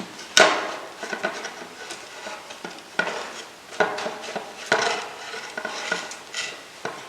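Steel rod being handled and worked, clanking and scraping against metal: several sharp clanks with a short metallic ring, with scraping between them.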